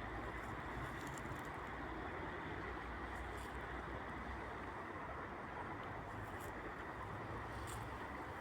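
Steady low rumble and hiss of distant city traffic, with a few faint clicks.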